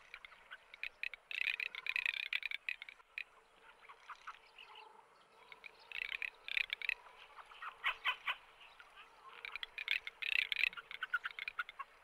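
Wetland ambience of animal calls: repeated bursts of fast, high rattling calls, coming in clusters every second or two.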